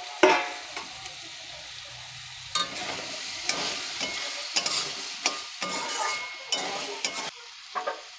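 Metal spatula stirring and scraping potatoes and ridge gourd around a kadhai, with a light sizzle of the sabzi frying. There is a sharp metal clank about a quarter second in, and a run of scraping strokes from about two and a half seconds until shortly before the end.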